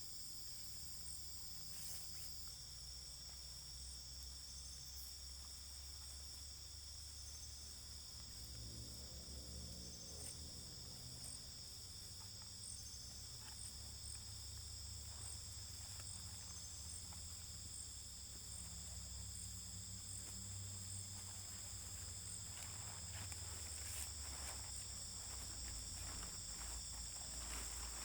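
Insects, crickets or similar, trilling steadily in several high-pitched unbroken tones over a low rumble, with scattered light clicks and taps in the last few seconds.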